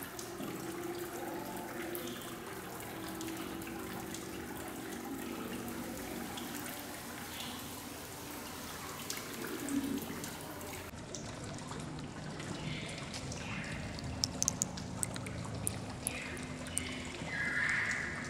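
Tiered stone courtyard fountain trickling steadily, with a few sharp clicks in the last few seconds.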